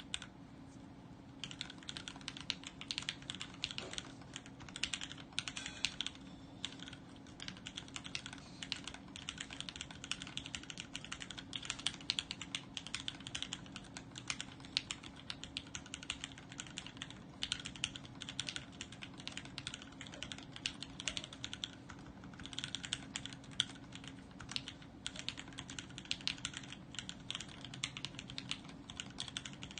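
Continuous typing on an Adelais mechanical keyboard with vintage Cherry MX Black linear switches on an FR4 plate and dye-sub ISO keycaps: a fast, irregular stream of keystroke clacks, starting about a second and a half in. A faint steady hum lies underneath.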